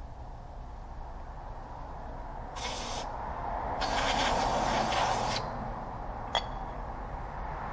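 Aerosol can sprayed through its straw nozzle onto a removed brake vacuum pump: a short hiss, then a longer, louder hiss of about a second and a half. A single sharp click about six seconds in.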